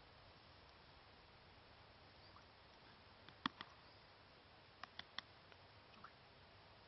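Near silence, broken by a few faint, very short high-pitched peeps: one sharp peep about halfway through, then three in quick succession a second and a half later.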